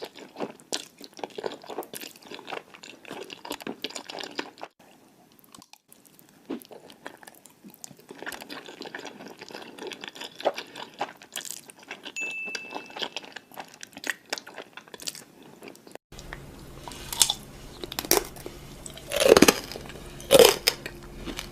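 Close-miked chewing and crunching of food, a dense run of crackly bites and chews. About two-thirds of the way through the recording changes and a few louder, sharper crunchy bites follow.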